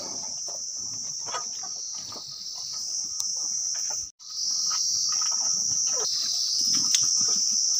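A steady high-pitched insect chorus drones on, with faint rustling of livestock feeding on fodder beneath it. The sound cuts out for an instant about four seconds in, then the insects return a little louder.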